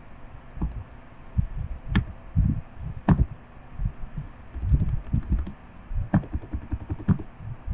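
Typing on a computer keyboard: irregular keystrokes, with a quick run of key taps a little past halfway.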